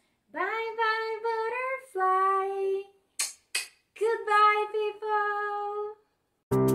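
A woman singing in several phrases of held notes with short breaks between them. About six and a half seconds in, a keyboard tune starts.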